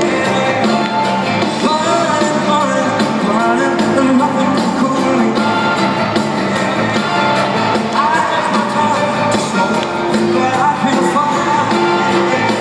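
Male singer and live band performing an upbeat rock-and-roll song, heard from high in an arena's stands.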